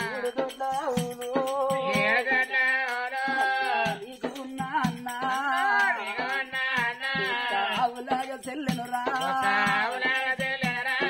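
Oggu Katha folk singing: a singer holds long, wavering sung phrases in Telugu folk style, with short breaks between them, over a steady beat of rattling hand percussion.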